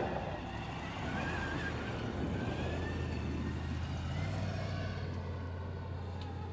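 Truck engine running with a steady low drone, its pitch rising a little about four seconds in.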